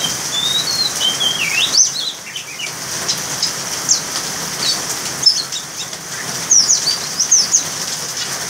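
Young Oriental magpie-robin (kacer) singing in a cage, over a steady hiss of rain. It gives warbling whistled phrases that rise and fall, breaks off for a moment, then gives short sharp upward notes, with a quick cluster of them near the end.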